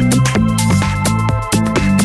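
Electronic background music with a steady beat and a bass line.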